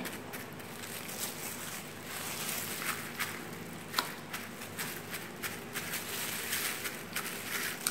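Paper towel rustling and crinkling as it is pressed and wiped over a slab of salt-cured pork belly to blot it dry, with a few light ticks.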